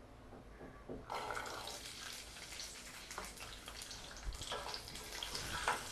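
Whole peeled shallots (small onions) tipped into hot oil in a kadai and starting to sizzle about a second in: a steady crackling hiss with scattered pops.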